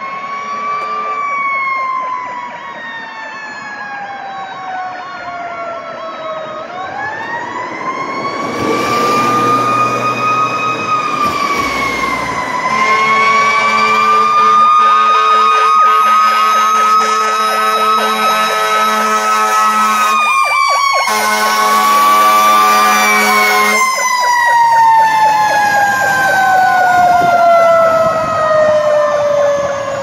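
Fire truck's mechanical siren (Federal Q2B) winding up and coasting down in long, slow rising and falling sweeps as the truck approaches on a call. A lower steady horn tone is held under it for several seconds in the middle.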